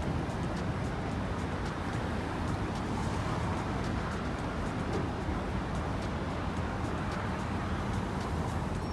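Steady city street traffic noise: a continuous rumble of passing cars and other vehicles.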